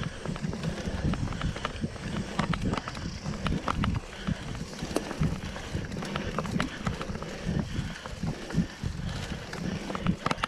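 Mountain bike riding down a dirt forest trail: tyres rumbling over the ground, with frequent irregular rattles and knocks from the bike over bumps.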